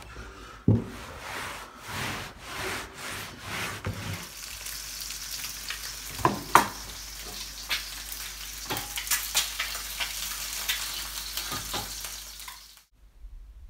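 A few seconds of rhythmic rubbing strokes from cleaning stairs, then eggs frying with a steady sizzle in a pan on a gas stove, with sharp clicks and scrapes of a plastic spatula against the pan. The sound cuts off suddenly near the end.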